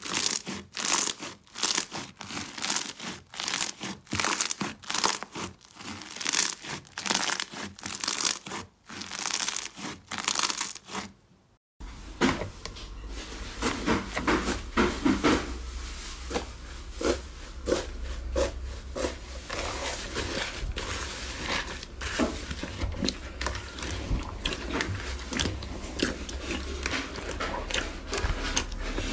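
Hands kneading and squeezing slime studded with small beads, giving rapid crackling and squishy pops. After a sudden cut about 12 seconds in, hands press and mix a blue slime covered in foam beads, with crunching crackles over a low steady hum.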